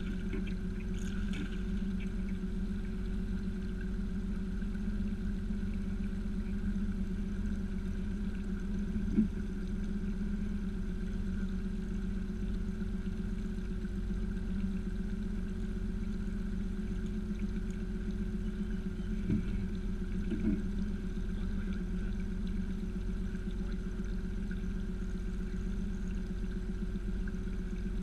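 A boat motor running steadily at one pitch, with a brief splash of water just after the start and three sharp knocks, the loudest about nine seconds in and two close together later on.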